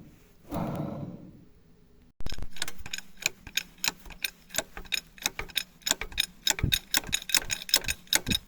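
A worn wheel hub bearing being turned: a brief grinding rush, then fast, irregular clicking and crackling as it rolls, the sign of a bearing gone rusty inside on one side.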